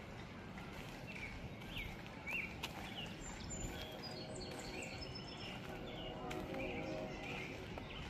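Small birds chirping over and over in short calls, with a low wind rumble on the microphone and footsteps on a dirt path.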